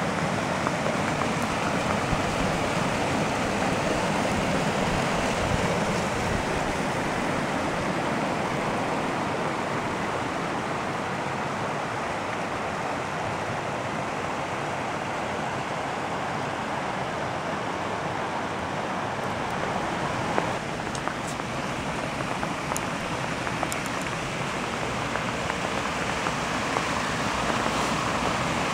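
A stream rushing steadily over small rocky cascades. A few faint clicks come in the second half.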